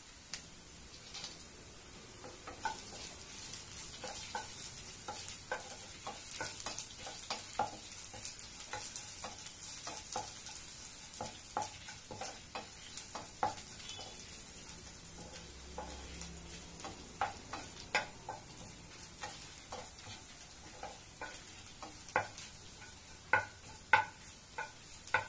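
Onions, curry leaves and dried red chillies frying in oil in a kadai, with a faint steady sizzle, while a wooden spatula stirs and knocks against the pan in short sharp taps that grow louder near the end.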